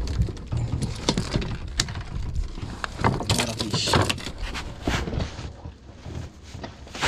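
Wind rumbling on the microphone, with scattered clicks and knocks of fishing gear being handled in a small wooden-decked boat, and a louder hissing rustle about three seconds in.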